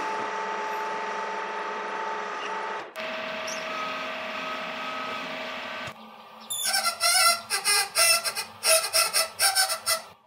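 Metal lathe taking a cut in 4140 steel with a carbide insert: a steady machine hum with a constant gear whine, briefly broken near 3 s. From about six and a half seconds a quick, irregular run of loud, sharp bursts takes over and stops at the end.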